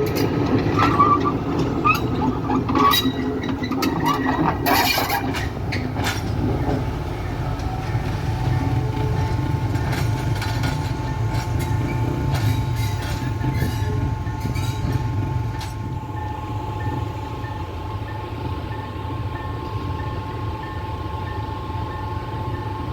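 Sri Lanka Railways S8 class diesel multiple unit running with a steady low drone. Metallic clanks and short squeals come in the first few seconds, then a steady high whine joins the drone.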